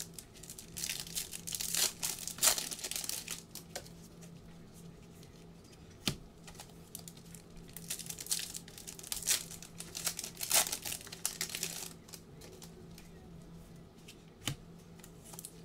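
Foil trading-card packs being torn open, the wrappers crinkling as cards are pulled out and handled. The crinkling comes in two spells, about a second in and again from about seven to twelve seconds in, with a couple of sharp clicks between.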